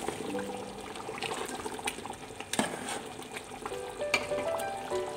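Beef qorma bubbling and sizzling in a metal pot while a steel spoon stirs it, with two sharp knocks about two and a half and four seconds in.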